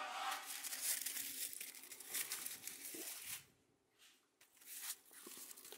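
Corn husks rustling and tearing as they are handled, in two spells with a short pause about three and a half seconds in, and a few sharp crackles toward the end.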